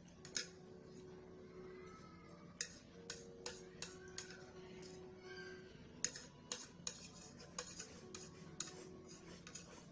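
Chopsticks clicking and scraping against a plate in irregular sharp taps as the last noodles are scraped up from the tilted plate and eaten.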